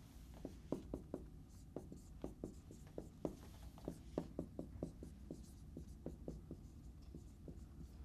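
Marker writing on a whiteboard: a run of faint, irregular taps and short strokes, several a second.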